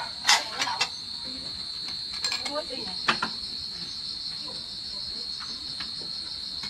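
Crickets trilling steadily at one high pitch, with a few sharp knocks and clatters, the loudest less than a second in and another about three seconds in.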